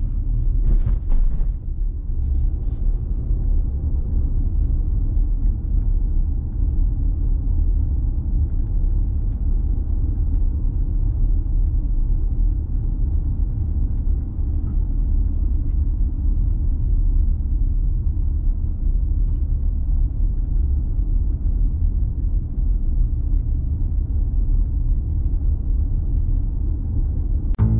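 Low, steady rumble of a car driving on a paved road, heard from inside the cabin: road and engine noise, with a few brief knocks about a second in.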